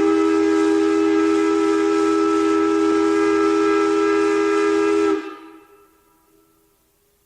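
Steam locomotive whistle sounding one long, steady chord with a hiss of steam, cut off about five seconds in and dying away in echo.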